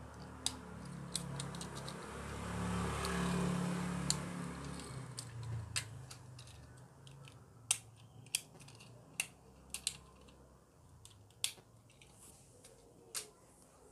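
Diecast toy cars being handled and set down on a hard stone floor: scattered sharp clicks and taps, about a dozen, more frequent in the second half. A low hum runs under the first half.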